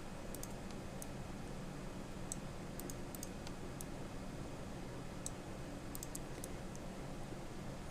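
Faint computer mouse and keyboard clicks, a dozen or so at irregular intervals, over a steady low hum.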